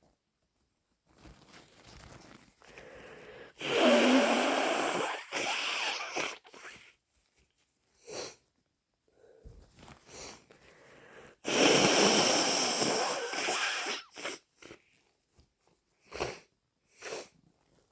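A congested person with a head cold sneezing and blowing a snotty nose into a tissue: two long, loud, wet bursts about four and twelve seconds in, with short sniffs and snuffles between and near the end.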